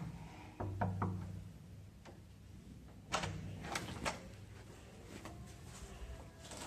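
Knuckles knocking on a wooden hotel room door: a few raps about a second in, then three sharper knocks around three to four seconds in.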